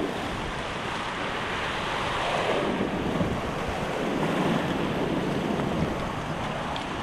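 Sea surf washing over and around shore rocks, surging twice, with wind buffeting the microphone.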